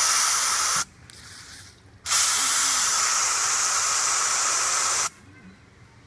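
Aerosol can of Hot Shot wasp and hornet killer jetting its stream in two sprays: a hiss of about a second, then, after a pause of about a second, a longer hiss of about three seconds that cuts off sharply.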